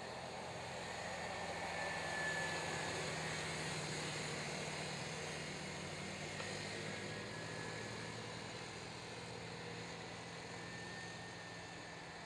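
Two youth ATVs with small engines running at racing speed, a steady drone with a faint high whine. It swells about two seconds in, then slowly fades.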